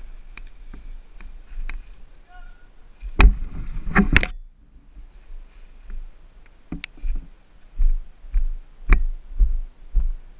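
Footsteps of a rider walking down a steep leaf-covered dirt trail, heard as heavy low thuds about two a second from about halfway through, after scattered knocks and a loud clatter a little over three seconds in. No engine is running.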